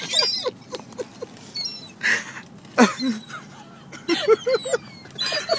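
A flock of seagulls calling over and over: short, sharp cries and mewing calls, some gliding down in pitch, overlapping from several birds.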